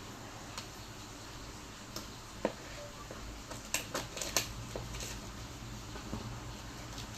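Parcel packaging being handled and unwrapped by hand: scattered crinkles and small taps, with a quick cluster of them a little under four seconds in, over a low steady hum.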